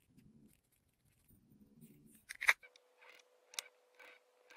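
Small glass crystal chips rattling softly as they are shaken from a little bottle into a silicone mould, then one sharp click about two and a half seconds in. After it, a faint steady hum runs under light taps about twice a second.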